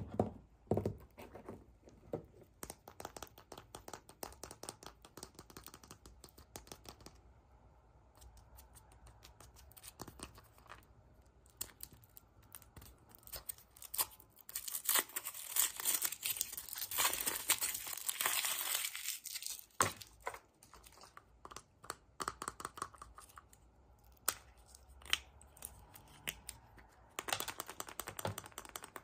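Packaging being torn open and crinkled by hand, with many small clicks and rustles. A longer, louder stretch of tearing comes about halfway through.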